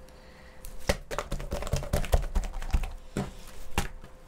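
Clear pink slime with small beads, softened with soothing gel, being stretched and pressed by hand. From about a second in it makes irregular sharp clicking pops as it is worked.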